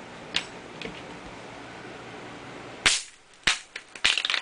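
Gas-charged Airsoft Innovations Tornado impact grenade going off: a sharp bang nearly three seconds in, a second sharp crack about half a second later, then a rapid rattle of clicks from the BBs spraying out.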